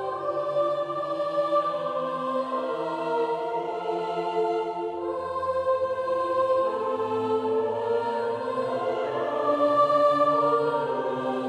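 Background music: slow choral-style music with sustained voices holding chords that change every few seconds.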